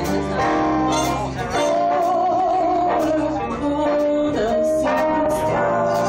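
Live band music: a woman singing with vibrato, holding a long wavering note, over guitar, bass and drums.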